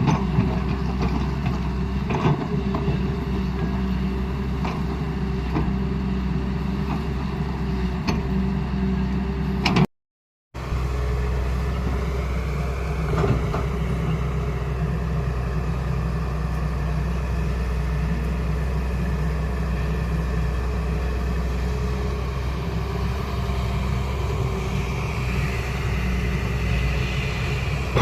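Hyundai R210 Smart Plus excavator's diesel engine running steadily, with scattered knocks during the first ten seconds. The sound cuts out for about half a second around ten seconds in.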